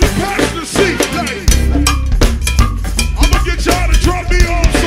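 Go-go band music: a cowbell and drum-kit groove with snare and rimshot strokes, and a heavy bass line that comes in about one and a half seconds in.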